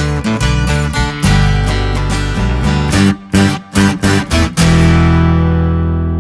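Background music: acoustic guitar strumming chords, broken by a few short, clipped strokes between about three and four and a half seconds in, then one chord struck and left ringing.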